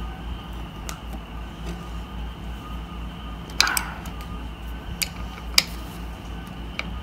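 A few sharp metallic clicks and taps, the loudest about halfway through, as screws and a hex key are worked at a gaming chair's steel recliner bracket, over a steady low hum.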